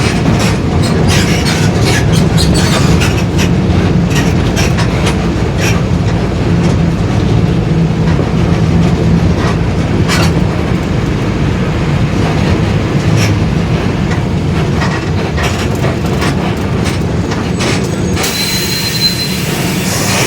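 Mercedes-Benz OF-1721 bus running under way, a steady engine and drivetrain drone with frequent body rattles and clicks; its differential growls. Near the end a hiss comes in, with a brief high whistle.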